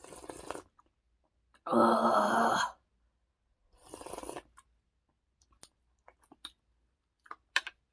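A person slurping spicy instant-ramen broth: a short sip at the start, a louder slurp lasting about a second a couple of seconds in, and another sip around four seconds. A few faint clicks follow.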